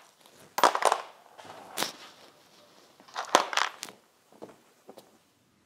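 Small anodised aluminium parts clattering and knocking as they are handled and dropped into a plastic tub, in three short bursts and then two faint clicks.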